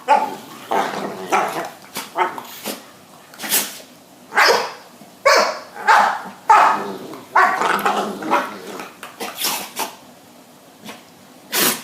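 Two dogs barking and sneezing in a rapid string of short bursts, with a brief lull shortly before a last sharp burst near the end.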